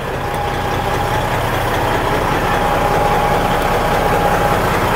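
Heavy truck's diesel engine idling steadily, with a thin steady whine over it from just after the start.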